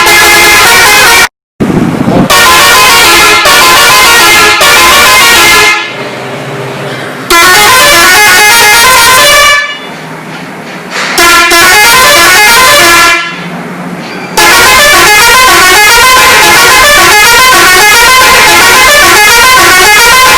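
Basuri six-trumpet, 16-tone electric musical bus horn (telolet horn) playing very loud tunes of quick stepping notes. It stops briefly a few times, leaving a low hum in the pauses.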